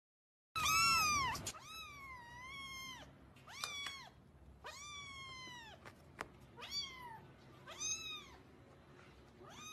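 A tabby kitten meowing about seven times in a row, high-pitched calls that rise and fall, the first the loudest.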